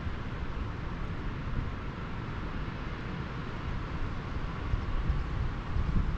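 Steady outdoor rushing noise, with an uneven low rumble of wind buffeting the microphone.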